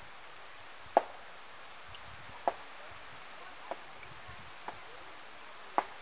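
Five sharp clicks, about a second apart, from small hard items being worked by hand. The first, about a second in, and the last, near the end, are the loudest.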